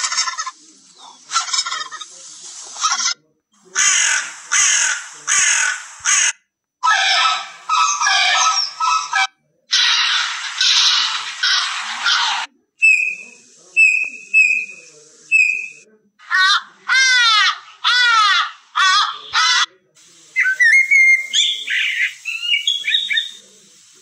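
Recorded bird calls from a phone's animal-sounds app, played one after another with short gaps: harsh gobbling and croaking calls of turkey, hooded crow, flamingo and heron in the first half, then four clear piping whistles of a bullfinch, a run of falling calls of an ibis, and a common blackbird's chirping alarm calls near the end.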